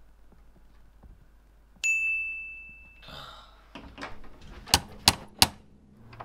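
A single bright ding that starts suddenly and rings out for about a second, then near the end three quick, sharp knocks.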